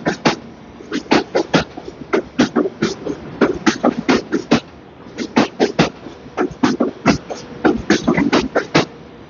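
Train wheels clacking over rail joints and switches as a Long Island Rail Road train passes, with sharp, irregular clicks and knocks several times a second.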